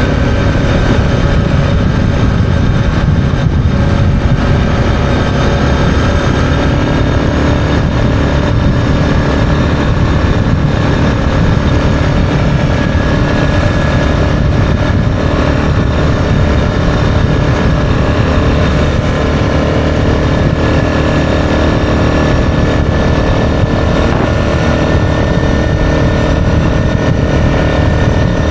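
Yamaha Grizzly 660 ATV's single-cylinder four-stroke engine running steadily at cruising speed while riding, with a constant drone and no change in revs.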